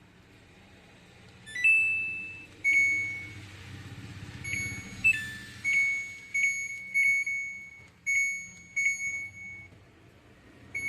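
Samsung washing machine's control-board buzzer sounding a run of electronic beeps, some short and some held, mostly on one pitch with a few higher and lower notes. The beeps start about a second and a half in.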